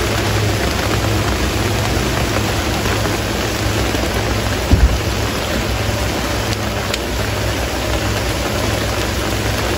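Steady rain falling, with a brief low thump about halfway through.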